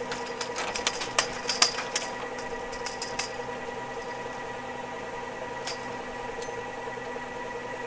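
Ski lift running: a steady motor hum with clicking, rattling cable and sheave noise, busiest about one to three seconds in.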